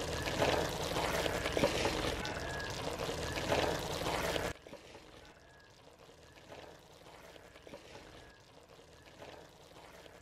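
Wooden spoon stirring chunks of half-cooked mutton with spice powders and garam masala in a pot: a steady wet mixing noise that stops about four and a half seconds in, leaving it almost quiet.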